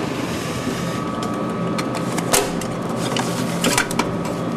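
Steady electrical hum of a vending machine, with a few sharp clicks and knocks about halfway through and near the end as its cash box is handled to take the money out.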